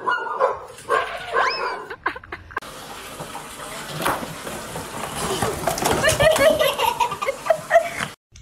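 A puppy whining in short high calls, one rising sharply. After a cut, a cardboard box and toy blocks clatter and tumble over in a run of knocks as a cat crashes through them.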